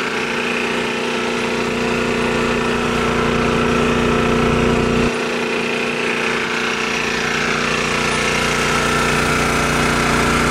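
A small engine running steadily with a constant hum, its lowest rumble dropping away suddenly about halfway through.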